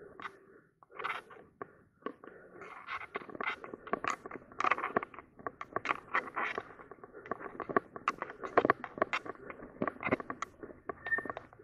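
Mountain bike tyres rolling over dry fallen leaves and dirt on a trail, giving an irregular crunching and crackling that grows busier after about two seconds.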